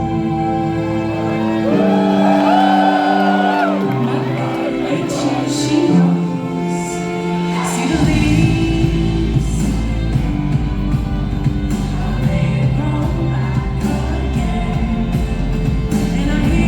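Pop song with a woman singing, a held line with vibrato over a thinned-out backing. The bass is dropped out, then the full band comes back in with bass and drums about eight seconds in.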